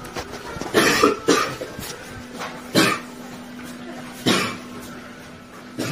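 A man coughing in fits: about three coughs close together about a second in, then two single coughs a second and a half apart. It is a persistent cough, acted as a symptom of tuberculosis.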